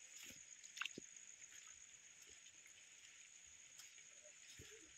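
Near silence: faint outdoor background with a steady high hiss and a few faint short clicks, the clearest a little under a second in.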